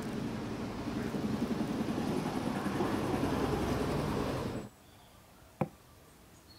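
Hand squeezing and mixing salted chopped onion in a bowl, a steady wet crunching and rustling. It cuts off about four and a half seconds in, followed by quiet and one sharp click.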